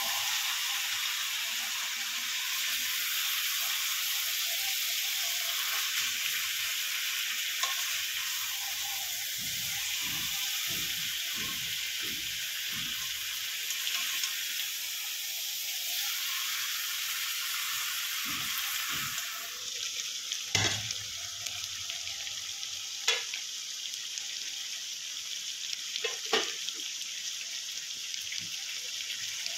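Mutton frying and sizzling in a pan while it is stirred, with a steady hiss and scraping strokes. About two-thirds of the way through the sizzle drops off, and three sharp knocks follow.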